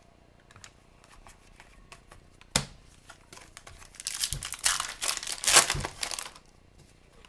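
Foil trading-card pack wrapper crinkling and tearing open, with a single sharp tap about two and a half seconds in.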